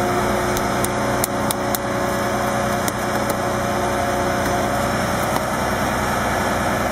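Ship's engine running steadily at sea, a continuous low drone with a steady hum, with a few light clicks and taps in the first few seconds.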